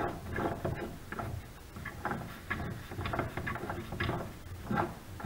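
Light, irregular metallic clicks and rattles as a threaded attachment is spun off the headstock spindle of a Rockwell Beaver 3400 wood lathe by hand.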